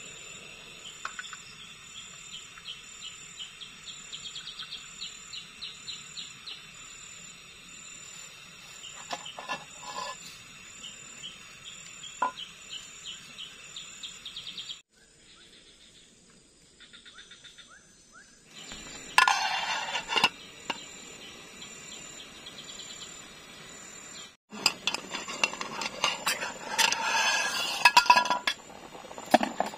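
Forest insects chirping steadily, with a fast pulsing trill for a few seconds and a few light clinks of cookware. In the last few seconds, louder clatter and the bubbling of a pot boiling hard on a portable gas stove.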